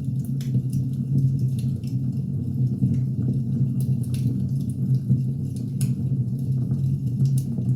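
Wood fire burning: a steady low rumble under irregular sharp crackles and pops from the burning logs.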